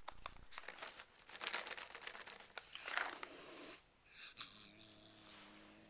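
Domestic cat eating cat treats: crunching and clicking as it chews. A little past halfway, a low, steady growling hum starts up, the sound it makes while eating with its mouth full.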